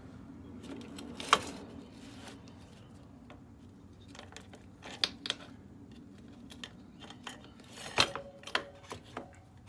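Scattered metal clinks and clanks of the DR-Z400's rear wheel being pushed forward and its drive chain being lifted off the sprocket, the sharpest knocks about a second in and near the end.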